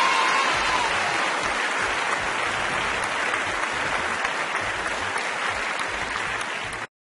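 Crowd applauding, a dense steady clapping that eases slightly and then cuts off suddenly near the end.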